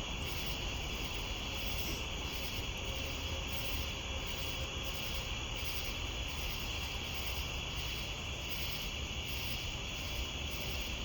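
A chorus of crickets or katydids: a steady high trill with pulsing chirps about twice a second, over a low steady rumble.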